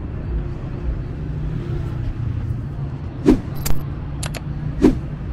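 Steady low rumble of street traffic, with a few sharp clicks in the second half, one of them a quick double click.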